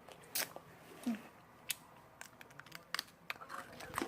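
Hard dalgona sugar candy giving irregular sharp clicks and crunches as it is bitten or cracked.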